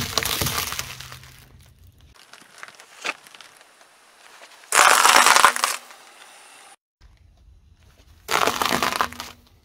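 A car tyre crushing onions with a loud crunch at the start. Later come two more loud crunching bursts, the last as the tyre rolls over a pile of expanded clay pebbles. A low engine hum runs under the first and last crunches.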